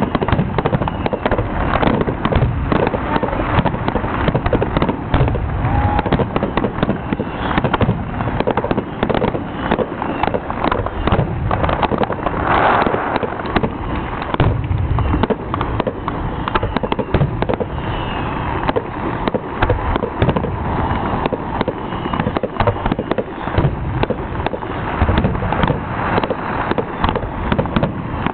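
Fireworks finale: a continuous barrage of aerial shells bursting, many sharp bangs and cracks a second overlapping with no pause.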